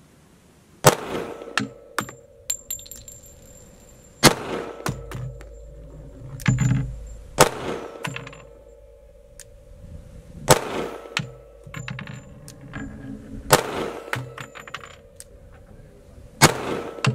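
.45 ACP semi-automatic pistol fired in slow aimed fire: six single shots about three seconds apart. Between shots, ejected brass casings tinkle as they land.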